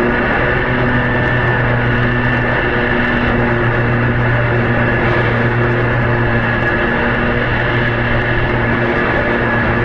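Lawn mower engine running steadily at a constant pitch.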